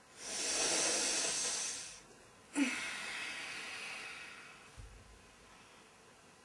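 A person taking a long deep breath in, then breathing out heavily with a short voiced start, the out-breath fading over about two seconds.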